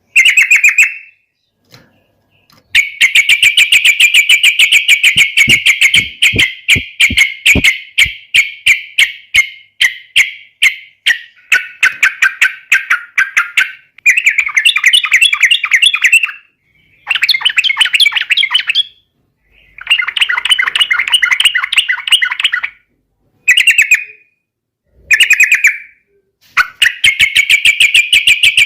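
A yellow-vented bulbul (trucukan) sings its loud, agitated 'fighting' song, the kind of song used to provoke rival birds into answering. It comes as runs of rapid chattering notes a few seconds long, broken by short pauses.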